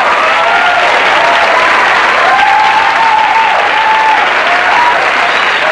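Sitcom studio audience giving a loud, sustained ovation of clapping and cheering, with whoops riding over the applause.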